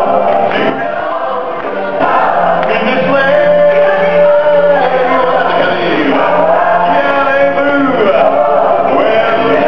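Stage-show music with a choir singing, long held and gliding vocal lines over a steady low note.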